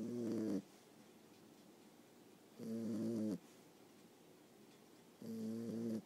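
Boxer puppy snoring, heard up close: three rhythmic snores about two and a half seconds apart, each a short buzzy, wavering tone, the first already under way at the start and the last near the end.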